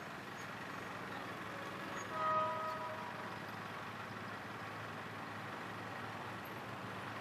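Steady hum of motorbike engines idling in a waiting crowd of traffic, with one short vehicle horn toot about two seconds in.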